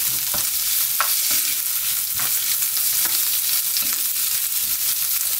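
Anchovies, left over from making broth, sizzling in oil in a nonstick frying pan over medium heat. A wooden spoon stirs them, with a few sharp knocks and scrapes against the pan.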